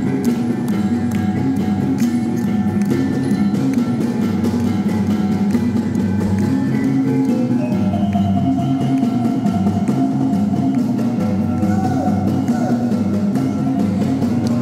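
Traditional Murut dance music: a steady, repeating pattern of gong-like mallet percussion with sharp knocks, and a higher sustained melody line joining about halfway through.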